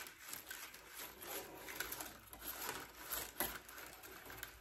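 Faint, irregular clicking and rustling of a bundle of thin wooden sticks being handled and sorted.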